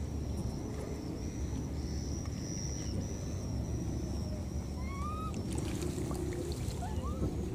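Outdoor ambience: a steady low rumble under a thin, continuous high-pitched insect drone. A few short rising bird chirps come about two-thirds of the way in, and light crackling rustles of leaves and branches follow as the monkeys climb.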